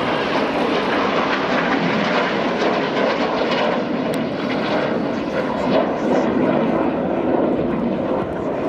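Several Red Arrows BAE Hawk T1 jets flying in formation, their turbofan engines making a steady, loud jet noise with no break.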